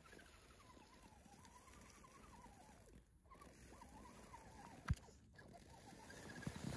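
Faint whine of a radio-controlled scale crawler's electric motor, rising and falling in pitch as the throttle varies while it climbs. A single sharp click comes about five seconds in.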